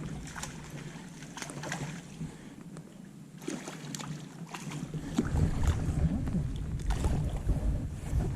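Wind buffeting the microphone, turning into a heavy low rumble from about five seconds in, over scattered light ticks and taps.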